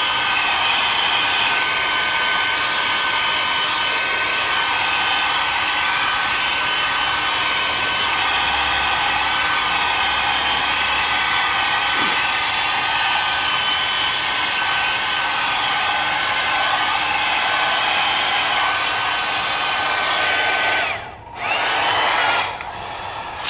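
Electric hot-air blower running steadily, its air blowing wet resin paint outward across a canvas so the gold flares out. Near the end it cuts out, runs again for about a second, then stops.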